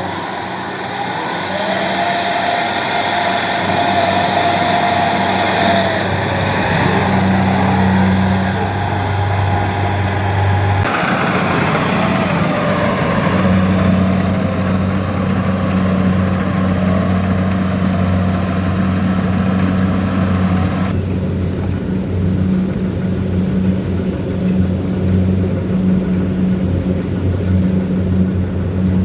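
Kubota DC-70 Plus combine harvester running steadily under load, a diesel engine hum with a wavering, slightly rising and falling whine above it. The sound shifts abruptly about 11 seconds in and again about 21 seconds in.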